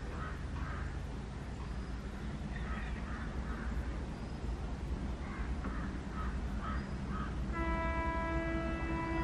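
Crows cawing in repeated bursts over the low rumble of approaching twin WDM3A Alco diesel locomotives. About one and a half seconds before the end, the locomotive horn starts a single long steady blast.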